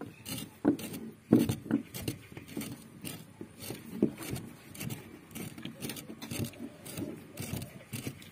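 Irregular light knocks, taps and scrapes, with one louder knock about a second and a half in.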